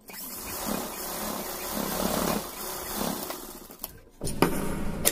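Sewing machine running a seam through layered cotton for nearly four seconds, then stopping, followed by a few sharp clicks near the end.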